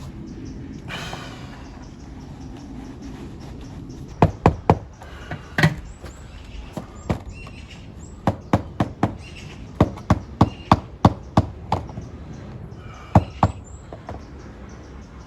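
A run of sharp knocks, hard objects striking, about eighteen in irregular clusters starting about four seconds in, with a brief scrape near the start.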